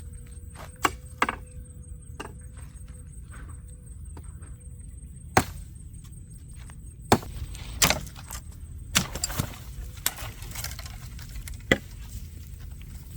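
A series of sharp, irregularly spaced knocks and cracks, about nine in all, over a steady low rumble.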